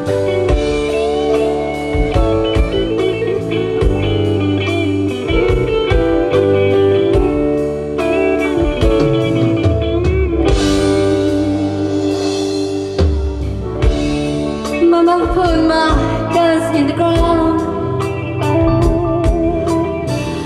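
Live blues-rock band recorded from the audience: a sustained, bending electric guitar lead over bass and steady drums, with a cymbal wash about halfway through.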